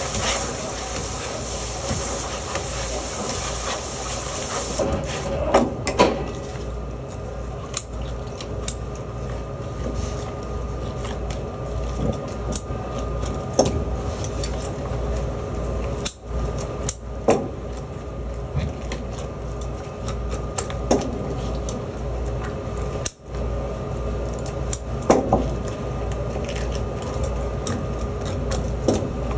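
Tap water running for about the first five seconds, then shut off abruptly. After that come scattered scrapes, clicks and knocks of a fish being cleaned by hand, over a steady background hum.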